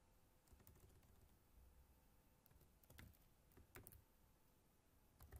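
Near silence with a few faint, scattered computer-keyboard keystrokes.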